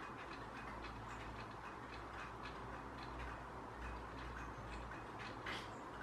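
Faint irregular ticks, several a second, from a small flock of long-tailed tits feeding at a hanging fat-ball feeder. A steady low hum runs underneath, and one sharper tick comes about five and a half seconds in.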